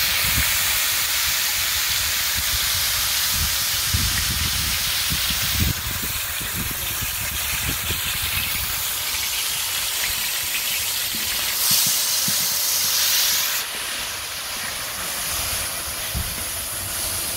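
Broccoli sizzling in a hot steel wok, giving off a steady steamy hiss. The level drops abruptly about six and again about fourteen seconds in.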